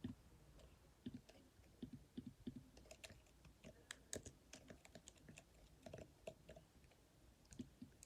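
Near silence with faint, irregular clicks, like keys being tapped.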